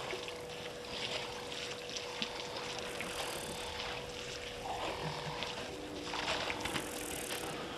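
Water splashing and sloshing in a waterhole as an elephant herd drinks and moves in the shallows, in irregular bursts, over a steady hum.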